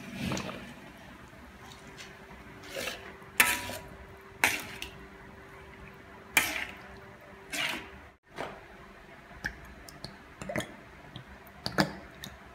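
Metal spoon scraping and clinking against a metal wok while thick tomato sauce is stirred, in several short strokes a second or two apart.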